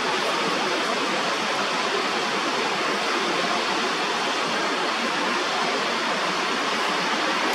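A steady rushing noise that holds an even level throughout.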